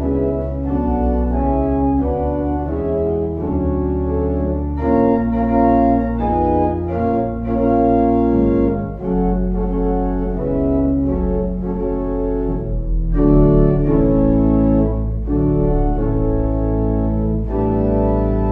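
Organ music: sustained chords that change every second or so over held low bass notes.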